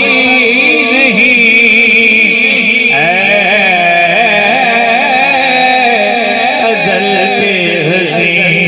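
A male naat reciter singing unaccompanied through a loud public-address system, drawing out long, wavering, ornamented notes. A new sung phrase begins about three seconds in.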